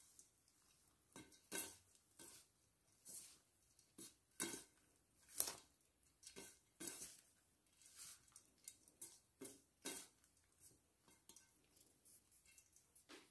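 Faint, irregular rustles and light scrapes, roughly one or two a second, of a gloved hand tossing pounded green rice flakes and grated coconut around a stainless steel bowl.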